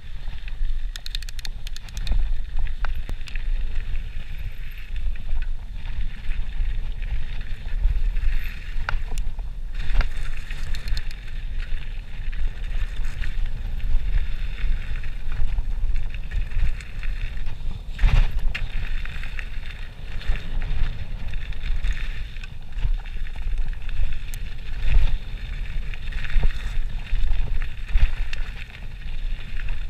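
Mountain bike riding fast down a gravel trail: wind buffeting the microphone, tyres hissing over gravel, and the bike clattering over bumps, with a sharp knock about eighteen seconds in.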